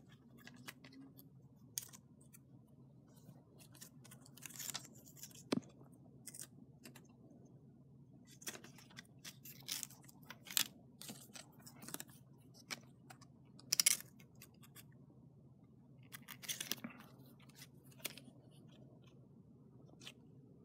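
Faint, irregular rustling, crinkling and light clicks from a small plush keychain and its card tag being handled and turned over in the hands, with a few louder crinkles of the tag.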